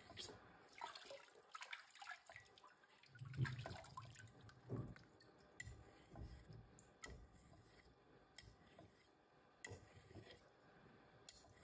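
Faint, quiet strokes of a straight razor sliding on a wet 8000-grit whetstone, with water dripping and small clicks. A soft thump comes about three and a half seconds in and another about a second later.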